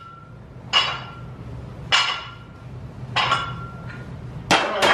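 Barbell and iron weight plates clinking with each bench-press rep: sharp metallic clinks with a short ring, about one every second and a bit, then two in quick succession near the end.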